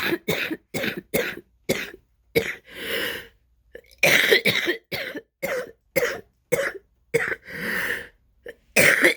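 Asthma-attack coughing: two runs of short coughs, about three a second, with a longer drawn-out breath after the first run and another near the end. The coughs are wet, bringing up phlegm.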